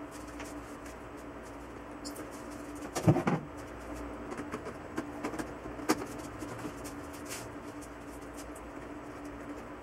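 Plastic front frame of an LG LCD TV being handled and fitted onto the panel: a loud knock about three seconds in, then several light clicks and taps.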